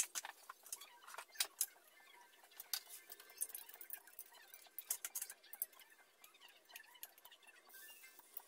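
Hot oil in a wok crackling and popping irregularly around a squash fritter as it shallow-fries. Near the end a steadier hiss sets in as fresh batter goes into the oil.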